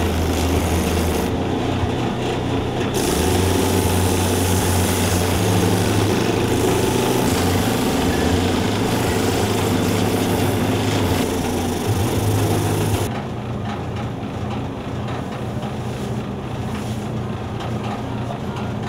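Shoe-repair finishing machine running: its motor-driven shaft hums steadily while leather heels and a shoe are pressed against the spinning sanding and buffing wheels, giving a rough grinding noise. The grinding stops about thirteen seconds in and the motor hum goes on.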